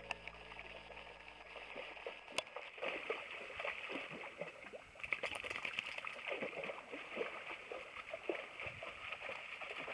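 A golden retriever wading through shallow lake water, making irregular small splashes and sloshes. The tail of a song fades out in the first couple of seconds.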